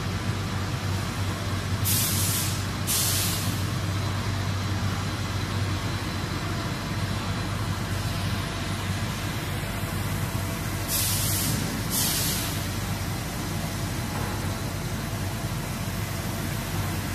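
Steady hum of a double-movement drum powder mixer's electric motor and drive as its stainless conical drum turns. Four short hisses come in two pairs, about a second apart within each pair, a few seconds in and again past the middle.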